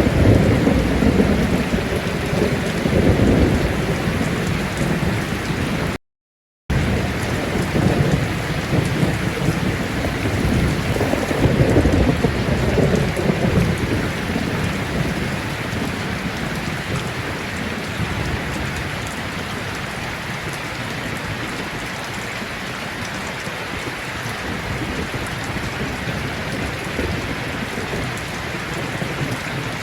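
Steady heavy rain with thunder rolling twice in the first half, then rain alone. The sound cuts out completely for a moment about six seconds in.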